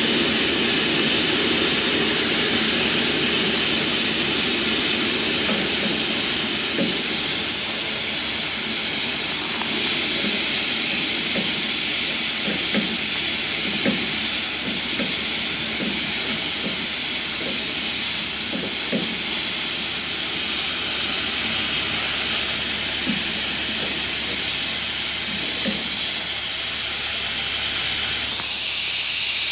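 A loud, steady hiss, with scattered faint clicks of a wrench working the drive-shaft U-joint strap bolts under a heavy truck.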